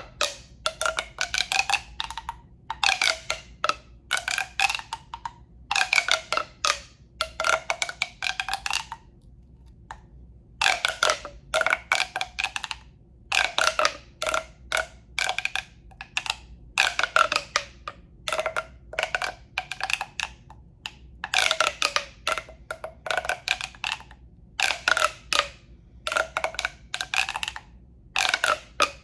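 A hollow tube being tapped in quick runs of four to six taps, one run about every second and a half, each run ringing with a hollow tone that bends in pitch.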